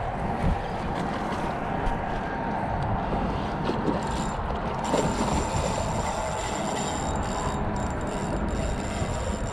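Steady wind noise buffeting the microphone, over water lapping and churning at a rocky shoreline.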